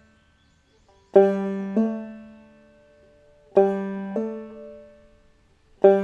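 Banjo third string plucked open and then hammered on to the second fret, the ringing note stepping up a whole tone with a small second attack. This happens twice, and the open string is struck a third time near the end.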